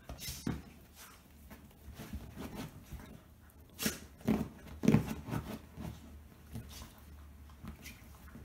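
Two golden retriever–English cocker spaniel mix dogs play-wrestling on a leather sofa: scuffling and rubbing with short dog noises, and a few louder ones about four to five seconds in.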